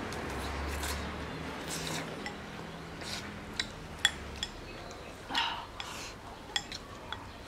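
Chopsticks clicking against ceramic rice bowls while eating: a handful of sharp clinks, the loudest about four seconds in, between soft slurping and chewing noises.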